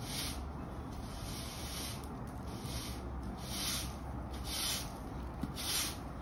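Hard-bristle broom sweeping dirt across concrete block paving in repeated strokes, each a scratchy swish, about one a second.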